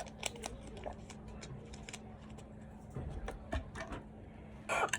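Faint scattered clicks and handling knocks over a low steady hum, then a sudden loud, rough, noisy burst of breath just before the end.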